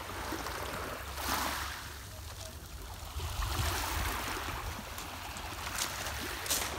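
Small sea waves lapping and washing over a pebble shore, swelling and fading in a few surges.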